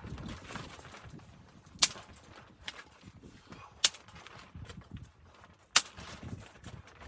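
Three sharp cracks, about two seconds apart and the last the loudest, over soft, irregular low thumps.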